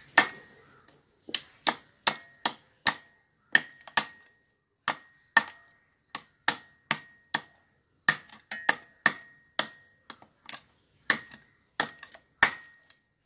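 Crab leg and claw shells being chopped and trimmed against the curved iron blade of an aruvamanai: a steady run of sharp knocks, about two a second, many with a brief metallic ring.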